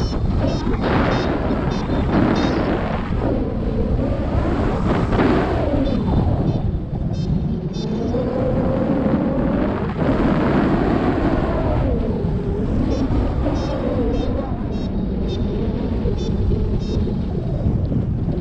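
Heavy wind buffeting the microphone, a loud steady rumble, typical of a paraglider pilot's camera. Faint, rapid high pips come and go in the background.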